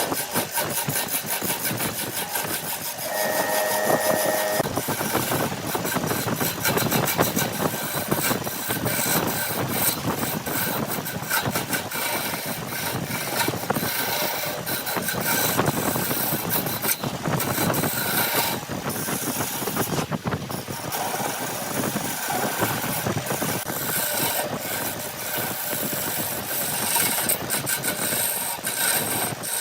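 An engine-driven machine running steadily with a dense rattling, scraping noise, and a brief steady tone about three seconds in.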